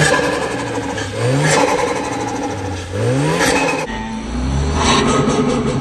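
Car engine revved hard three times, each rev a quick rising sweep in pitch that falls back, about a second and a half apart. Near the end it runs more steadily with a couple of lighter blips of throttle.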